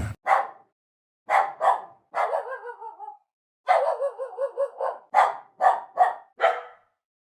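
Puppy yelping and whining: a few short high yips, then a falling whine and a longer wavering whimper about four seconds in, then four quick yips in a row.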